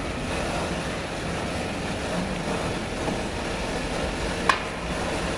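A steady rushing, rumbling background noise, with one sharp metal clank about four and a half seconds in as a crewman climbs down through a steel deck manhole.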